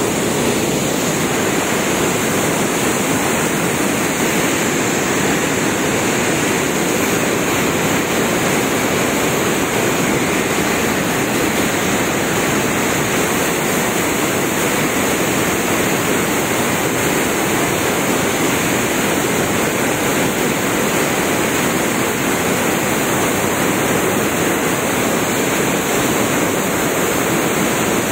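Water rushing out of an opened dam spillway, a loud, steady rush of falling floodwater with no let-up.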